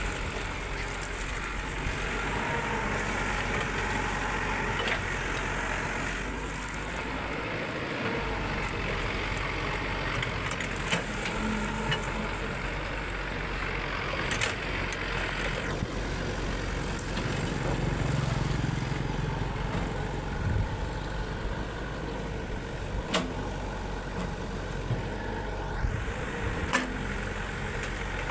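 Heavy diesel machinery, typically an excavator, running steadily, with occasional clicks and knocks and a brief hiss about halfway through.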